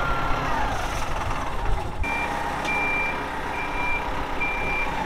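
Forklift running, with a whine falling in pitch during the first second. From about two seconds in, its reversing alarm beeps about once a second as it backs away.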